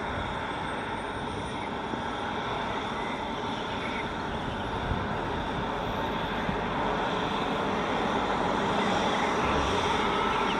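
Eurocopter BK117 twin-turbine helicopter running on the pad with its main rotor turning: a steady rush of rotor and turbine noise. A faint high whine rises slowly in pitch and the sound grows a little louder toward the end as it runs up for takeoff.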